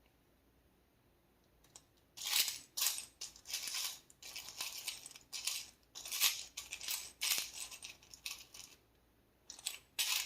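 Small charms clinking and rattling as they are shaken and cast onto a surface. The run of sharp little clinks starts about two seconds in and goes on until nearly the end, with a short pause before a last few.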